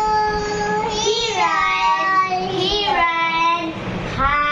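A young child singing a nursery song in a high voice, with long held notes and gliding pitch, pausing briefly near the end before going on.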